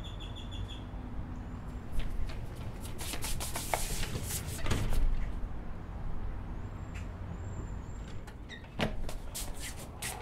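Outdoor background noise with a steady low rumble, a swell of louder noise about three to five seconds in, and scattered sharp clicks and knocks, the strongest about two seconds in and again near the end.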